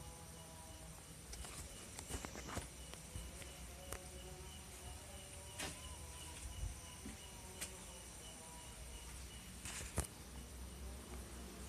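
A cricket chirping in a steady pulsing trill, with a few sharp clicks scattered through; the loudest click comes near the end.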